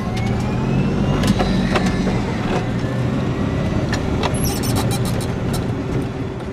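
A 1965 VW Beetle converted to a 96-volt DC electric drive pulls away, heard from inside the cabin. Its drivetrain gives a thin whine that rises in pitch over the first couple of seconds as the car gathers speed. Steady road rumble runs under it, with scattered clicks and knocks from the body and road.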